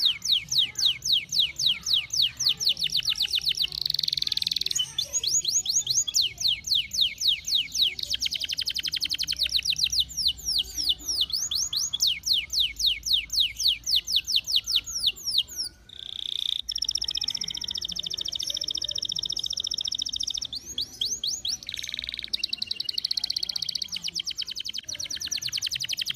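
Domestic canary singing a long, continuous song: rapid trills of repeated falling notes, then, after a brief break about two-thirds through, held high whistled notes alternating with more trills.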